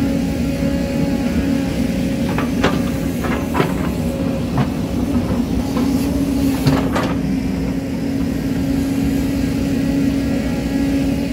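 Diesel engine of an excavator running steadily under load as its bucket pushes earth and rocks, with several sharp knocks and clatters of stones between about two and seven seconds in.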